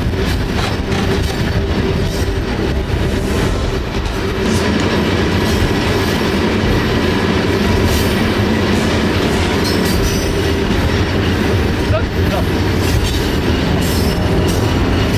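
Loaded iron-ore freight train rolling along, heard from on board the ore wagons: a steady, heavy rumble and rattle of the wagons and wheels on the track.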